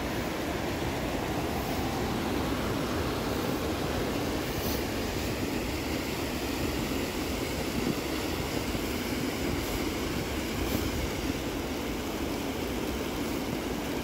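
Steady rush of a fast-flowing, snow-fed mountain creek, an even unbroken roar of water.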